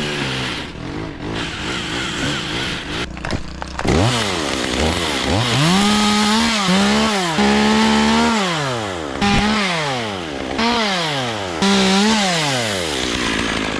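Chainsaw engine revved up and down over and over, its pitch climbing, holding briefly at full speed and falling again about once a second from a few seconds in.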